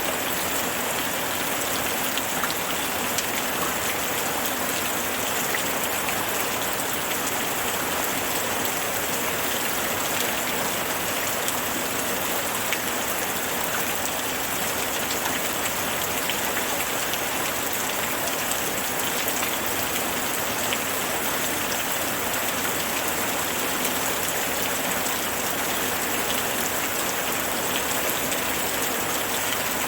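Steady, even rain falling, with fine scattered drop ticks over a constant hiss.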